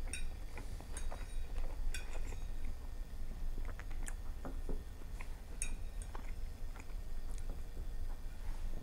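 A metal fork clicking and scraping against a ceramic plate as bits of food are picked up, with close-miked chewing in between. A steady low hum runs underneath.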